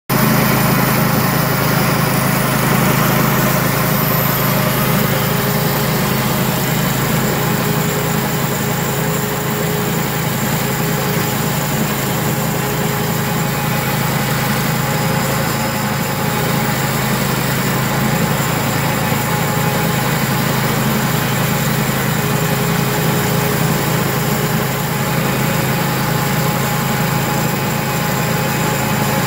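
Portable band sawmill running steadily, its small engine driving the band blade as it cuts lengthwise through a log.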